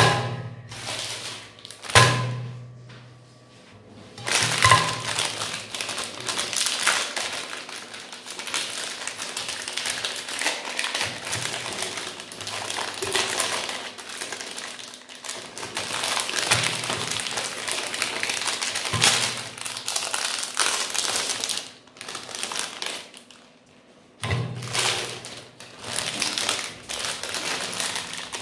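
Plastic Magnum ice cream bar wrappers crinkling and tearing as they are peeled open by hand, in irregular crackling bursts. A few louder thuds mark bars being knocked down onto a glass plate, the first right at the start, another about two seconds in and one near the end.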